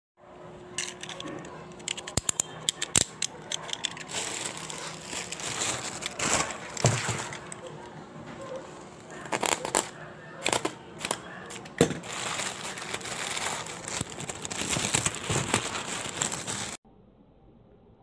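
Plastic packaging (a black plastic mailer bag and clear plastic wrap) being handled and opened: irregular crinkling with many sharp crackles, stopping abruptly near the end.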